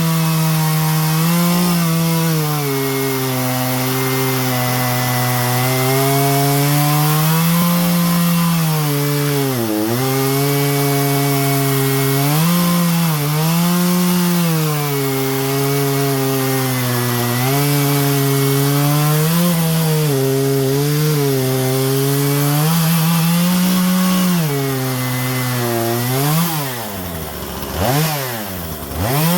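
Husqvarna 120 Mark II two-stroke chainsaw cutting wood at full throttle, its engine pitch sagging and recovering again and again as the chain bites. Near the end it drops back toward idle twice and revs up again.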